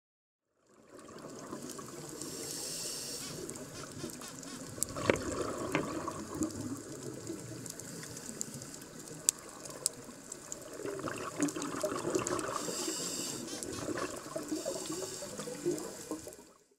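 Water gurgling and trickling as picked up by a submerged camera, with scattered sharp clicks; it starts about a second in and cuts off just before the end.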